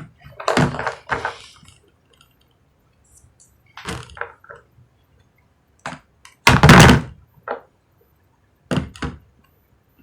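Plastic toy pieces being handled and knocked on a hard surface: a series of short thunks and clatters, the loudest a heavy thump about six and a half seconds in.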